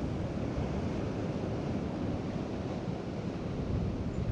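Steady wind buffeting the microphone over the wash of sea waves, a rough rumbling noise with no separate events.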